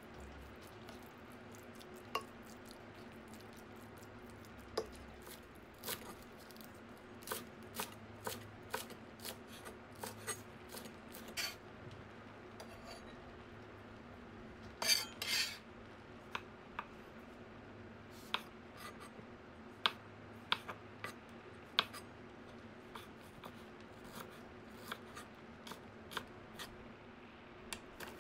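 Knife chopping lettuce on a wooden cutting board: irregular sharp knocks, few at first and then coming every fraction of a second, with a louder crunchy cluster of cuts about fifteen seconds in. A faint steady hum runs underneath.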